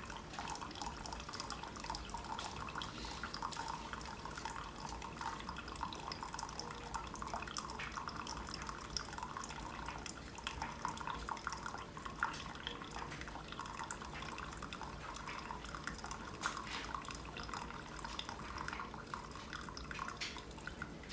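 Keurig Supreme single-serve coffee maker brewing: hot water runs and drips steadily into the cup, with small scattered ticks, as the machine runs a normal brew cycle.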